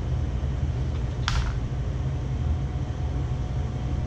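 Steady low hum of room machinery, with one short scrape about a second in from a kitchen knife on a plastic cutting board.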